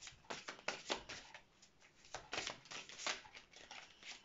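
An oracle card deck being shuffled by hand, the cards slapping and sliding against each other in a quick, irregular run of soft strokes.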